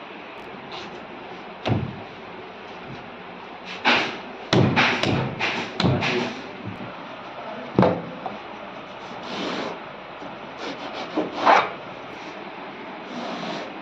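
A string of sharp knocks on a wooden workbench, then rasping strokes of a long saw blade cutting through a block of polyurethane foam near the end.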